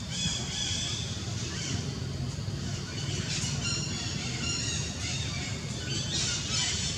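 Baby macaque giving repeated short, high-pitched squealing cries, several in a row with pauses between, over a steady low hum.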